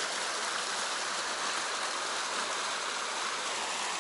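Fast-flowing stream rushing over rocks in a small white-water cascade: a steady, even rush of water.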